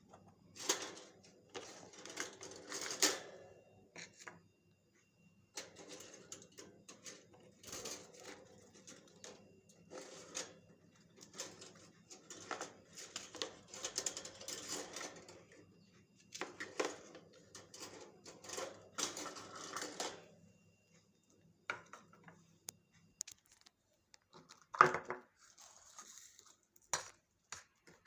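Light clicking and clattering in irregular bursts of a second or two, with one sharper knock near the end.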